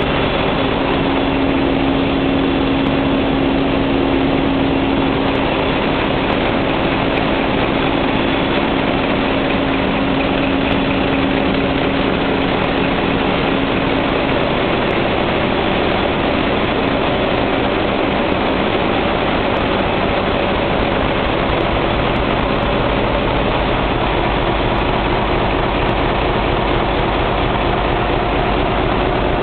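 Large medium-speed marine diesel generator engine running steadily at about 500 rpm, heard close up: a loud, constant mechanical din. A steady hum runs through it and fades out about halfway.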